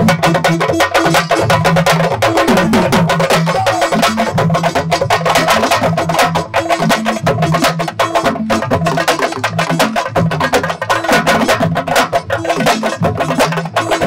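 Music with fast, dense drumming over a low, stepping bass line.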